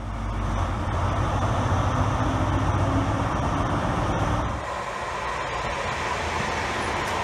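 Class 43 HST diesel power car running at a station, a steady low engine drone. About four and a half seconds in, a cut brings an electric multiple unit running through, a steady rushing noise without the engine drone.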